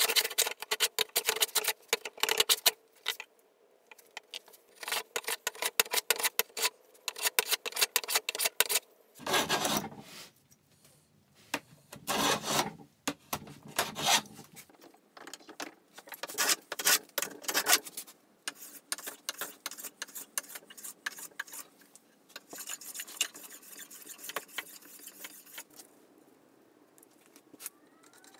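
Hand planes shaving oak: runs of quick strokes, each a short dry scraping hiss, come in bursts with brief pauses between them.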